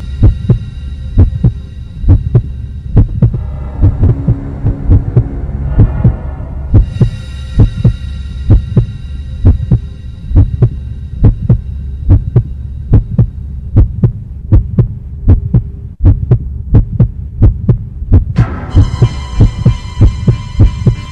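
Heartbeat-style sound effect, a double beat about once a second, over a steady low drone. Sustained high synthesized tones fade in and out above it, making a tense underscore.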